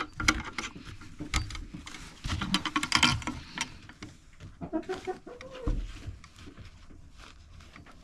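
Chickens clucking close by, with several sharp knocks and clicks among the calls in the first few seconds.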